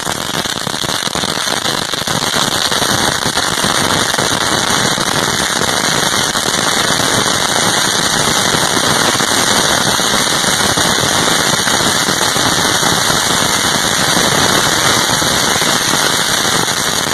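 A long string of firecrackers going off in a rapid, continuous crackle of pops.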